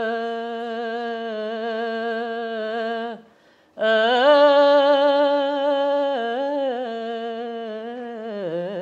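A young man singing unaccompanied, without words: one long held note, a short break about three seconds in, then a second long note that wavers into quick ornamented turns near the end.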